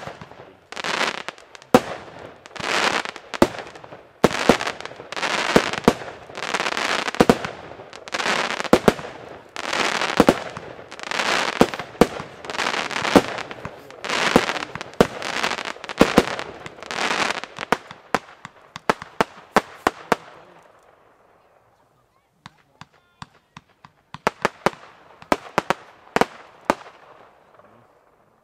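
142-shot compound fireworks cake firing about one shot a second, each launch followed by a crackling burst of stars. After about twenty seconds the crackle dies away, leaving a few scattered pops. The uploader judges the cake fired too slowly.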